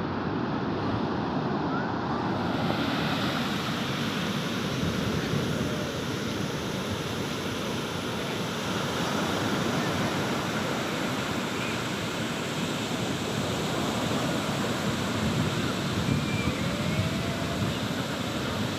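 Steady rushing noise, with a few faint short squealing glides about two thirds of the way through and near the end.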